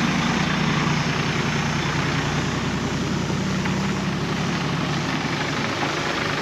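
Four-wheel-drive engines running in a steady low drone as the vehicles drive slowly past at close range on a dirt track, over a constant hiss.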